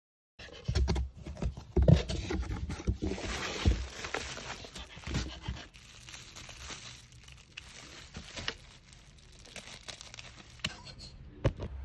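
Crinkling, rustling handling noise with scattered knocks, loudest in the first few seconds and quieter after that.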